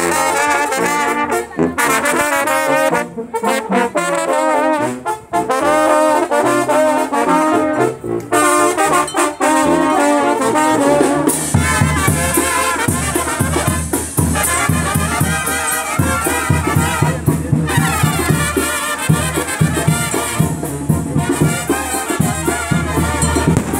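Brass band music playing loudly, a wavering melody carried by the horns; about halfway through, a steady low beat comes in underneath.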